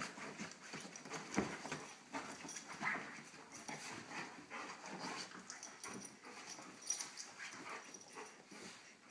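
Two dogs, one small and one large, play-fighting: short whiny dog vocalizations and snuffling breaths come in irregular bursts amid scuffling on the bedding, the loudest about a second and a half in.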